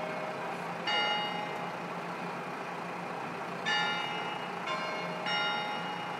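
Bell-like chimes struck about four times at uneven intervals, each ringing out and fading over about a second. Beneath them runs the steady hum of the KiHa 54 railcar's diesel engine idling while the train stands at a station.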